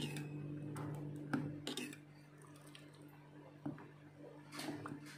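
Metal ladle stirring thick rice porridge in a steel pot: a few soft scrapes and light clicks against the pot, over a steady low hum.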